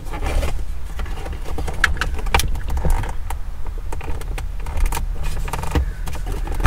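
Scattered clicks and light metallic rattles from parts and trim being handled at a car's centre console, over a steady low rumble.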